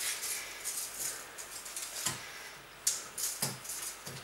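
Irregular rustling and clicking of objects being handled, with a few short, sharp knocks through the second half.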